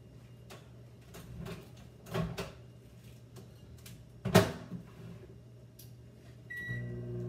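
Kitchen handling sounds: scattered knocks and clicks of cupboards and objects being moved, the loudest knock about four seconds in. Near the end a short beep sounds and a steady appliance hum starts up.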